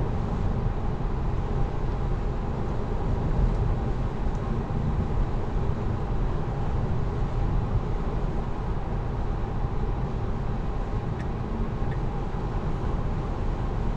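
Steady road and tyre noise inside the cabin of a Tesla Model 3, an electric car with no engine sound, driving in traffic.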